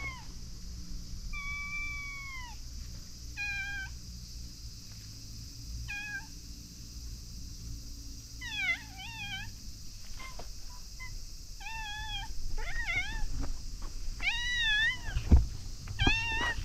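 A tabby cat meowing repeatedly, about nine short calls, several wavering up and down in pitch and louder toward the end as it comes close. A single thump about fifteen seconds in.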